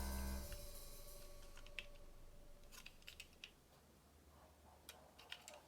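Background music with drums ends in the first half second, leaving near silence broken by a few faint, scattered light clicks.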